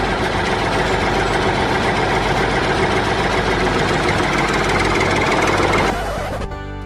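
A small engine-driven machine running steadily with a dense mechanical noise, stopping about six seconds in.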